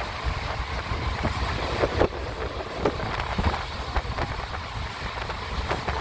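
Running noise of a moving train heard from an open coach window: a steady low rumble with wind on the microphone. Irregular clanks and knocks come through it, the loudest about two seconds in.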